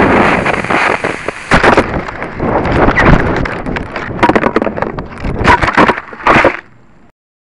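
Model rocket heard through its own onboard camera microphone: the motor's loud rushing hiss of thrust fades about a second in. Then comes irregular wind buffeting and knocking as the rocket tumbles down, with a loud burst of rustling and knocks near the end as it comes to rest in the grass. The sound cuts off suddenly.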